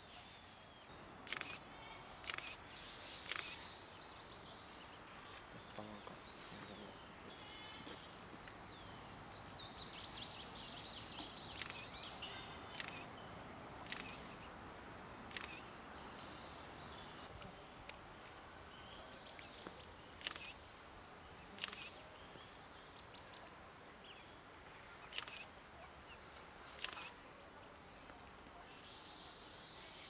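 Camera shutter clicks, about a dozen single sharp clicks at irregular intervals, over faint high peeping from eastern spot-billed duck ducklings.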